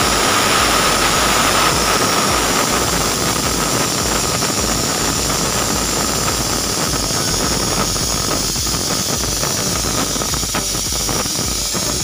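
Pressure cooker whistle blowing: steam jets out under the weight valve on the lid with a loud hiss. It starts suddenly and holds steady, with a whistling tone that fades after a few seconds. This is the sign that the cooker has reached pressure and is letting off steam.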